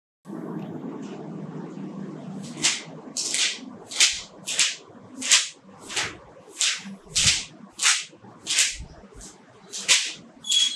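Paper pages of a notebook being flipped one after another, about thirteen quick swishes at a steady pace of roughly one every two-thirds of a second, starting a couple of seconds in. A low steady hum runs underneath.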